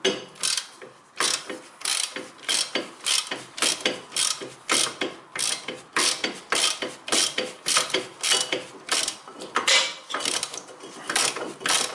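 Socket ratchet clicking in quick back-and-forth strokes, about three clicks a second, as it turns out a loosened bolt on a car's front brake assembly.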